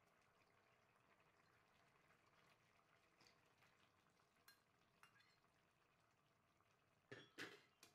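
Near silence, with two faint taps near the end.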